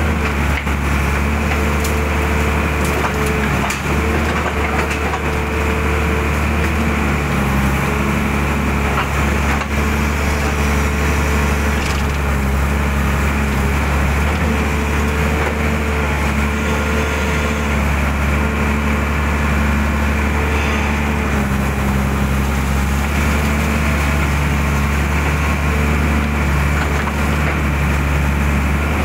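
Mitsubishi excavator's diesel engine running steadily as the boom and bucket work, its note shifting with the load, with a few knocks and rattles.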